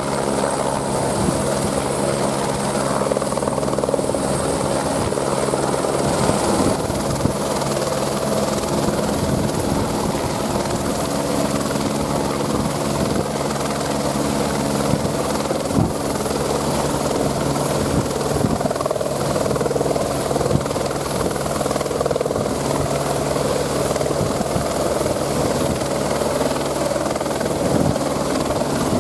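Single-engine helicopter hovering low and lifting an underslung load on a long line, its rotor and turbine running steadily. A thin high turbine whine sits over the rotor noise and steps slightly higher about seven seconds in.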